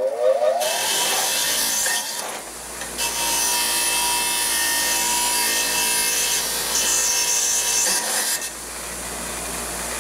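Bench grinder spinning up with a rising whine over the first second, then running at a steady pitch while a metal tube is pressed against the wheel to grind off a paper sticker. The grinding eases briefly about two seconds in and again after eight seconds.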